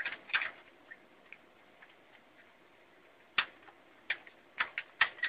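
Sharp plastic clicks and taps of a connector being pushed and tried against computer motherboard pins, a part that does not fit. Two clicks at the start, a few faint ticks, then a quickening run of clicks from a little past halfway.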